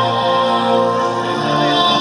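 Music playing over an air-show public address system: sustained chords with a low bass note that steps up about one and a half seconds in.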